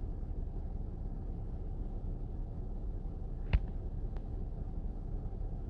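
Low steady rumble with a single sharp click about three and a half seconds in.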